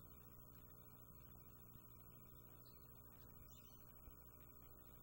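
Near silence: a faint steady electrical hum with background hiss, and a small tick about four seconds in.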